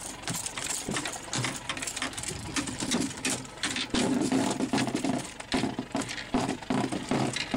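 Rapid, irregular tapping and knocking from a gaffed king mackerel shaking its body and slapping its tail against the boat's side and rails as it is hauled aboard.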